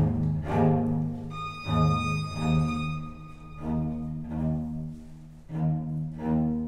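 Bowed string music: a violin playing sustained, swelling notes over a lower bowed line that pitches below the violin's range.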